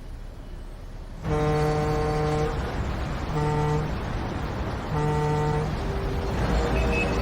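Vehicle horn honking three times, the first blast the longest, with another steady horn-like tone starting near the end.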